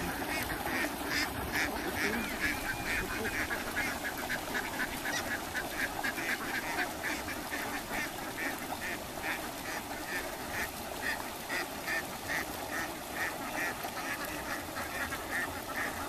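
A large flock of domestic ducks quacking, many short overlapping calls following one another several times a second without a break.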